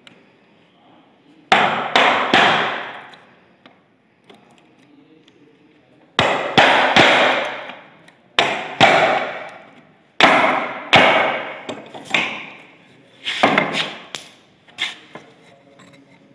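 Mallet striking the handle of a firmer chisel, driving the blade into wood to chop out a groove. The blows come in short runs of two to four, with pauses between.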